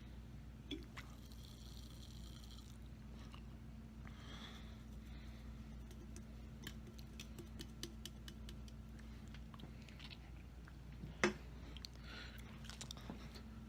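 Quiet room tone with a low steady hum and scattered soft clicks and rustles, busiest in the middle. One sharp click about eleven seconds in is the loudest sound.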